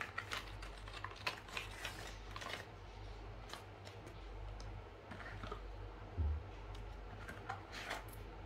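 Cardboard and paper packing from a smartphone box being handled: light crinkles and clicks in clusters, mostly in the first two and a half seconds and again near the end, with a dull low thump about six seconds in. A steady low hum runs underneath.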